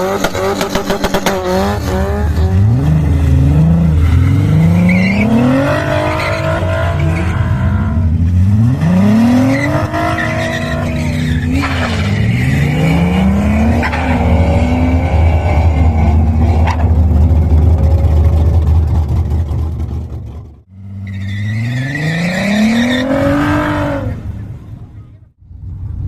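Volkswagen Passat's 3.6-litre VR6 engine under hard acceleration, its pitch climbing through several pulls and dropping back between them as it shifts up or lifts off. About 21 seconds in the sound cuts out briefly, then one last rising pull follows.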